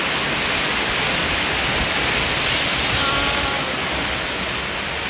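Churning white water of a river rapids ride rushing around the raft, a steady loud whoosh.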